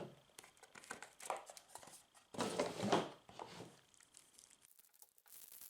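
Plastic packaging crinkling and rustling in the hands in a few irregular bursts, as a puzzle cube is unwrapped.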